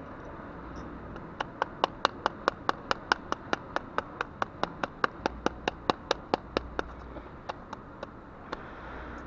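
A rapid, even run of sharp taps, about five a second, starting about a second and a half in, then thinning out to a few scattered taps and stopping near the end.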